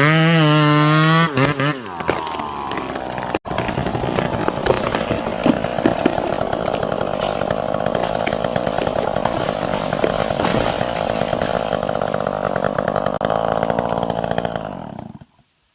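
Two-stroke chainsaw felling a sengon tree: it runs at high revs for about a second and a half, its pitch drops, and it then runs on loaded and noisier while cutting before stopping abruptly near the end.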